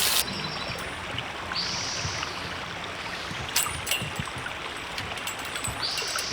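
River water flowing steadily, with a few light clicks about halfway through.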